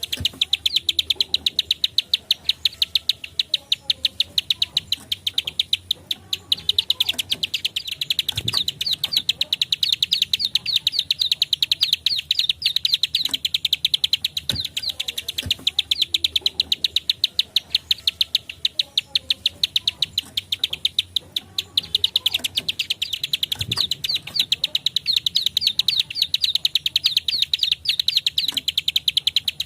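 Plain prinia (prenjak klik / ciblek sawah) giving its rapid-fire clicking call: a fast, continuous string of sharp, high 'klik' notes. It eases off briefly twice before picking up again.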